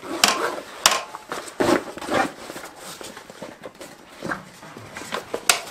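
Handling sounds from packing away a portable gas barbecue: its fabric carry bag rustling and its parts clicking as the legs are folded. There are several sharp clicks, the loudest about a second in and near the end.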